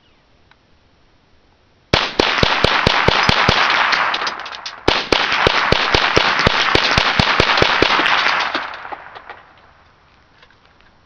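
Colt .22 Tactical Rimfire (M4-style .22 LR semi-automatic rifle) rapid-fired: two quick strings of sharp cracks, about five shots a second, starting about two seconds in with a brief break near the middle. The echo of the shots fills the gaps and fades out after the last shot.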